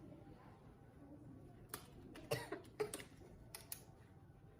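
A couple of short, quiet coughs a little past two seconds in, with a few light clicks around them.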